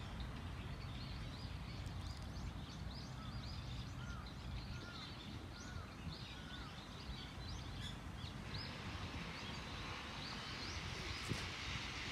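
Outdoor ambience: small birds chirping in many short, quick notes over a steady low rumble. From about eight seconds in the chirps stop and a steady hiss takes over.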